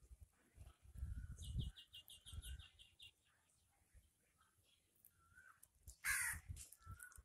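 Outdoor birds: a quick run of about a dozen high chirps a second or two in, then a crow's single loud caw near the end. Low rumbles come and go early on.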